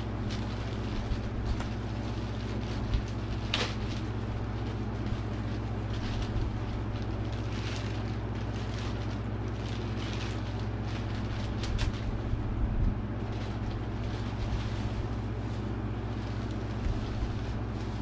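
Plastic bubble-wrap bags crinkling and rustling in brief, irregular crackles as model horses are unwrapped from them, over a steady low hum.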